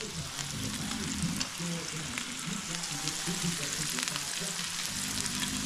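Meat sizzling on a tabletop Korean barbecue grill: a steady hiss with many fine crackles and pops.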